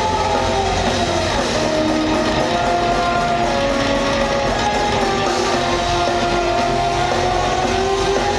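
Rock band playing live and loud: distorted electric guitars over drums, with a lead melody line that slides and bends in pitch.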